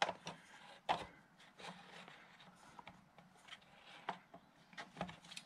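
Hands working the plastic drill chuck of a Drill Doctor drill sharpener as it is loosened and the drill taken out: a few light clicks and knocks with soft rubbing between them.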